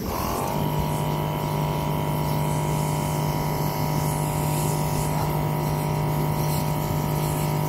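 Electric pressure washer starting with a short settling whine, then running steadily: a motor hum with the hiss of its wand spraying water onto an air-conditioner condenser coil.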